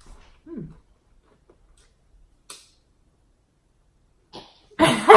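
Faint clicks and small mouth sounds of eating, then a loud cough near the end.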